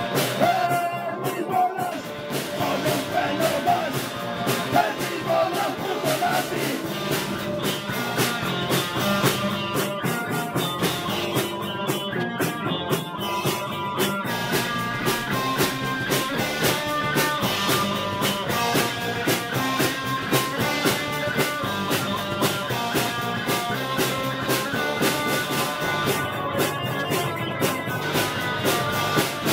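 Rock band playing: a drum kit with cymbals, electric guitar and electric bass, steady and loud.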